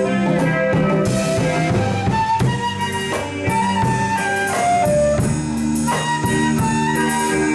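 Live rock band playing an instrumental: a flute carries a melody of held notes, stepping down about halfway through, over electric guitar, bass guitar and a drum kit.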